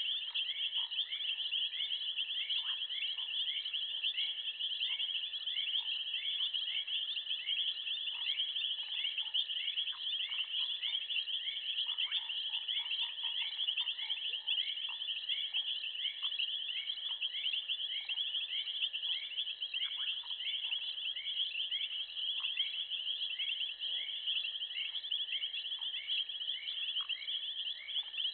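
Chorus of night insects in the bush: a continuous shrill high trill with a second chirping call repeating at an even, quick pace, and faint scattered short calls underneath.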